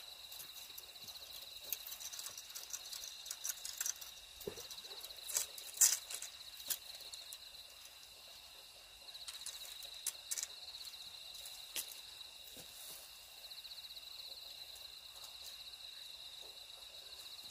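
Night insects chirring in a steady high-pitched drone, with scattered clicks and rustles, the loudest about six seconds in.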